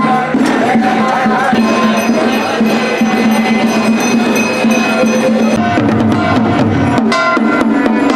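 Kirtan: voices chanting over rhythmic percussion of drums and clapping strikes. The beating becomes denser and heavier about two-thirds of the way in.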